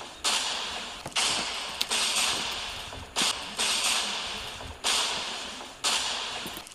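A hissing swish repeated about once a second, each stroke starting sharply and fading away over most of a second.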